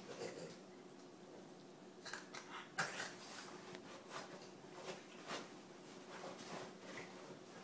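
French bulldogs play-wrestling on a cushioned dog bed: soft, irregular scuffles and rustles of fabric as they roll and paw at each other, with one sharper knock about three seconds in.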